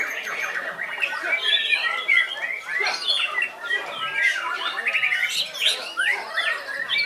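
Several white-rumped shamas singing at once in competition. Their rapid, varied whistles and chattering phrases overlap densely, with no pause.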